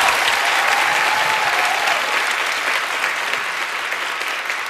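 Studio audience applauding, the clapping easing slightly toward the end.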